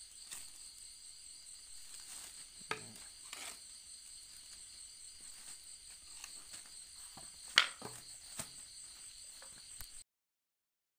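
Insects chirring steadily at a high pitch, with a few short rustles and sharp taps of plastic bags being filled with sawdust by hand. The loudest tap comes about seven and a half seconds in, and all sound stops abruptly about ten seconds in.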